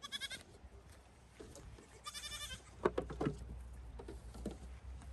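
Goat kids bleating twice, short high quavering calls, one at the start and one about two seconds in. A few sharp knocks follow, the loudest about three seconds in: hooves striking the wooden deck.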